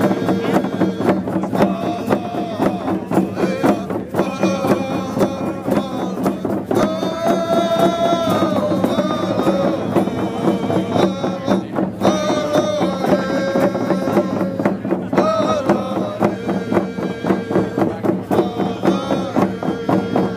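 Group hand-drum song: several people beating frame hand drums together in a steady beat while singing in unison, with held, gliding notes over the drumming.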